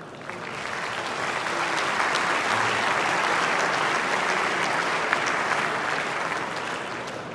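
Large audience applauding, building up over the first couple of seconds, holding steady, then fading out near the end.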